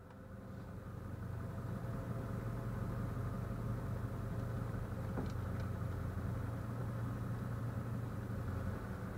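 Vehicle engine running steadily at low speed as the vehicle pulls away, fading in over the first second or so, with two faint ticks a little past halfway.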